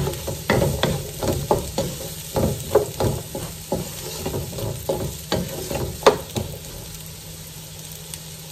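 Wooden spoon knocking and scraping against a non-stick frying pan as diced courgette is stirred, with the courgette sizzling in hot oil. The spoon strokes come two or three a second and die down near the end, leaving the sizzle.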